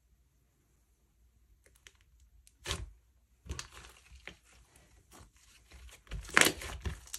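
Hands working glossy slime, pressing and stretching it, with sticky crackling and popping. Nearly silent for the first second or so; the crackling builds, with the loudest burst about six seconds in.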